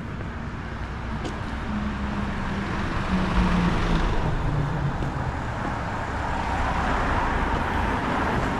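A car engine running and tyres rolling as a vehicle drives slowly close by on the street. It grows louder over the first few seconds and then holds steady.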